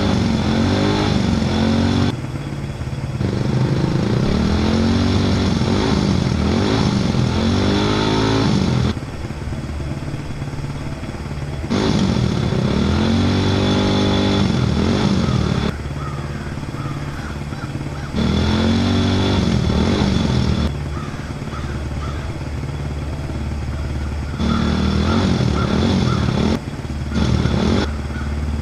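A small vehicle's motor revving up and falling back again and again at full throttle. The sound drops and returns abruptly every few seconds.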